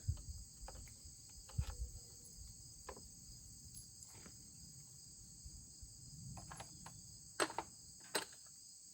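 Steady high-pitched chorus of insects in the background, with scattered light clicks and knocks from hands working on the engine. Two sharper clicks come near the end.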